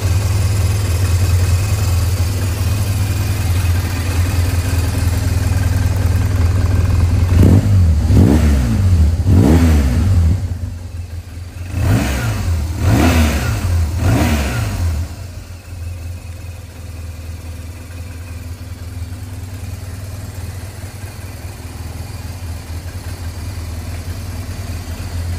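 BMW R1200 GS air/oil-cooled flat-twin boxer engine idling steadily, then given a run of quick throttle blips, each rev rising and falling back. About fifteen seconds in, the engine sound drops away to a much quieter steady background.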